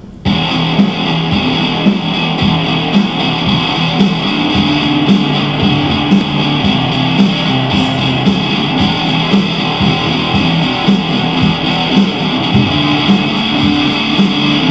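Intro music: guitar-led track with a steady beat.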